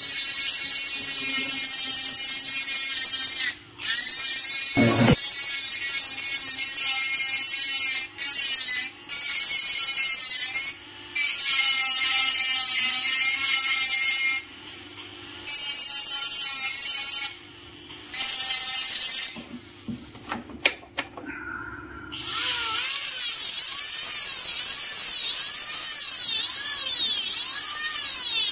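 Dental lab micromotor handpiece grinding a cast metal implant bar with a bur while finishing the casting: a high motor whine over a hiss of grinding, its pitch wavering under load. It cuts out briefly several times and starts again.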